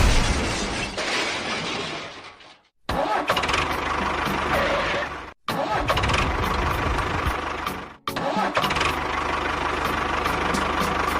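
Vehicle engine and machinery noise in short pieces, each ending in an abrupt cut or a fade to silence about every two and a half seconds.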